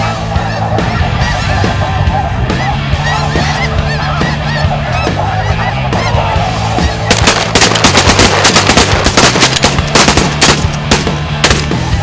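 A big flock of snow geese calling continuously, then about seven seconds in a rapid, overlapping volley of shotgun blasts from several hunters lasting about four seconds.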